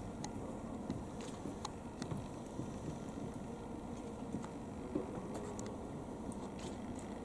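Steady hum of an indoor ice arena, with scattered short, faint clicks and scrapes; one is a little louder about five seconds in.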